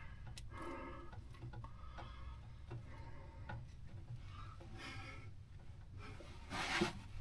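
Faint handling noises: rubbing and scattered light clicks, with a louder rustling burst near the end.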